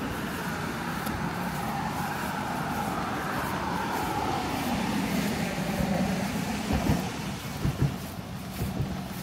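A car driving past on a rain-wet road, its tyre hiss swelling and then dropping in pitch as it goes by. A few footsteps thump on the wet pavement near the end.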